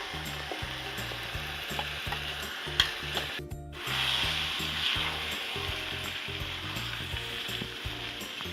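Sepu vadi (lentil dumplings) and masala sizzling in a hot pan while a spoon stirs them, with occasional clinks of the spoon against the pan. The sound drops out for a moment about three and a half seconds in, then the sizzle comes back louder.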